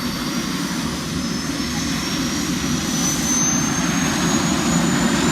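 Helicopter turbine engine spooling up for takeoff, with a steady rotor-and-engine rumble and a thin whine that climbs slowly in pitch as it grows louder.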